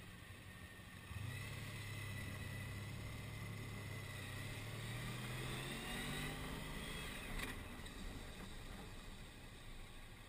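Touring motorcycle engine pulling away and accelerating, its drone starting about a second in and rising slowly in pitch, then falling again about two-thirds of the way through, with wind and road noise on a helmet-mounted microphone.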